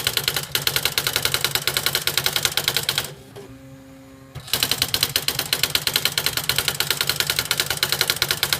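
Smith Corona Display 900 electronic typewriter printing its built-in demo by itself: the daisy wheel strikes the paper in a rapid, even run of about ten strikes a second, like a slow daisy wheel printer. About three seconds in the striking stops for a second and a half, with only a faint hum, then starts again.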